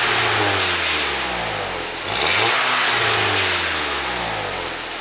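A VW Mk6 Golf GTI's 2.0-litre turbocharged four-cylinder is revved while stationary through a tuned exhaust. The revs fall away from a blip, rise again in a second quick blip about two seconds in, then slowly drop back toward idle.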